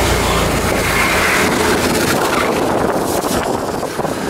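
Wind buffeting the microphone inside a moving three-wheeler (tuk-tuk) on a wet road, with the engine's low running note under it fading after about a second.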